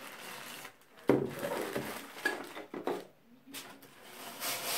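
Plastic packaging bag crinkling and rustling as a plastic valve is handled and set into a polystyrene foam packing insert, with a sudden knock about a second in. Near the end, hands rub and scrape against the styrofoam.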